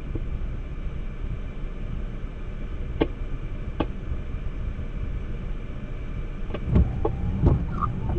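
Steady low rumble of a car running, heard from inside the cabin, with two sharp knocks about three seconds in and a burst of louder knocks and thumps near the end.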